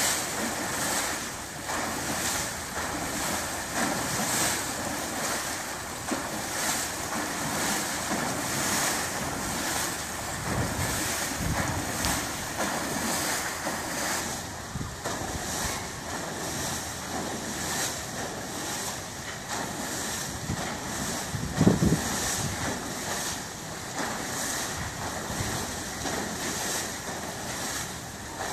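Liberty ship propeller, half out of the water, turning and churning the surface, its blades splashing through in rhythmic surges, with wind buffeting the microphone. One louder thump comes about three-quarters of the way through.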